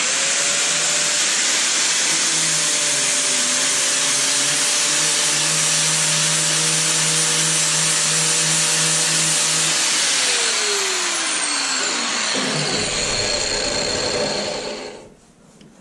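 Corded DeWalt angle grinder with a paint-stripping disc running at full speed against painted aluminium, stripping the paint off. Its pitch falls from about ten seconds in as it winds down, and it stops near the end.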